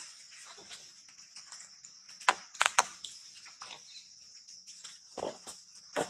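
Dry fallen leaves crunching and crackling underfoot in a few sharp crunches, loudest in a quick cluster of three a little past two seconds in and again near the end, over a steady high-pitched insect drone.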